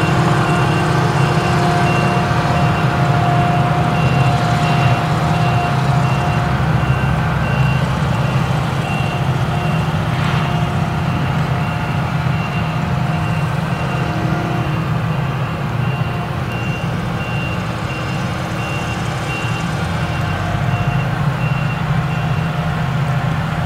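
Claas Jaguar 970 forage harvester with its MAN V8 engine running steadily under load while chopping sorghum, with a tractor pulling the trailer alongside. A reversing beeper sounds regular high beeps over the drone and stops near the end.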